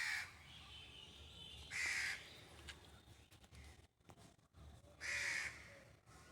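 A bird giving three loud, short, harsh calls: one at the start, one about two seconds in and one about five seconds in.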